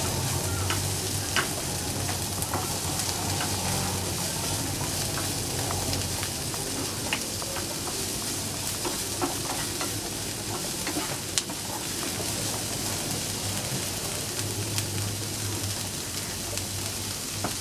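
Onion frying in a little oil in a pan, with a steady sizzle. Scattered clicks and scrapes come from a spatula as the onion is stirred.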